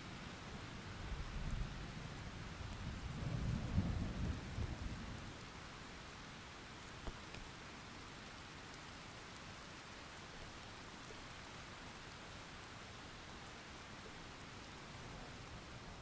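Thunder rumbling low, swelling to its loudest about four seconds in and dying away by about five seconds, over a steady hiss of rain.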